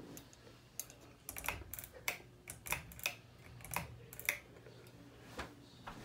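SMC U42 ceiling fan running with a low steady hum and a series of sharp ticks about every half second, stopping a little past the middle.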